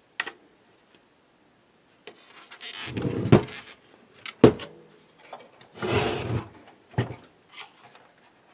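Handling noise: rubbing and scraping with several sharp knocks, as hands and the camera move over an opened oscilloscope chassis.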